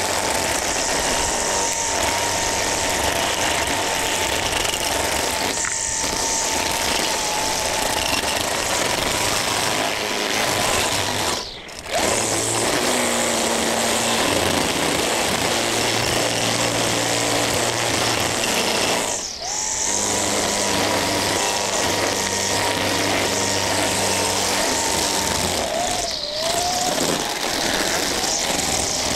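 String trimmer running at cutting speed, its line whipping through grass and weeds with a steady high whine. Twice the motor eases off briefly and then spins back up.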